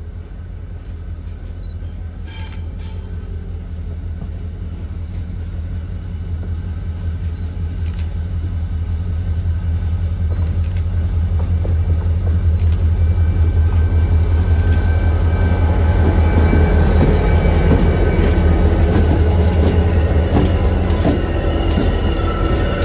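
Two EMD GP40-series diesel locomotives, a GP40-2LW leading and a GP40WH-2 trailing, approach and pass. Their engines drone, growing steadily louder as they come near. Toward the end the wheels click over the rail joints as the locomotives go by.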